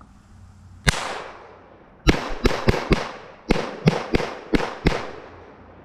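Ten shots from a Glock 44 .22 LR pistol: one shot, then about a second later nine more in quick, uneven succession, each with a short echo tail. The whole 10-round magazine fires with the pistol cycling every round without a jam on higher-velocity ammunition.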